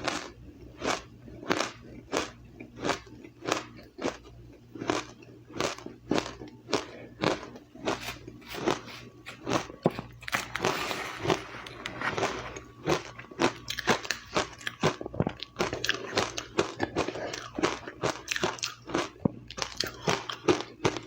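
A person biting and chewing ice close to the microphone: crisp crunches, about one and a half a second at first, then thicker and quicker crunching from about halfway through.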